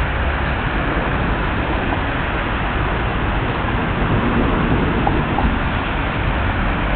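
Water rushing over a low stepped river weir: a steady, even rush of noise.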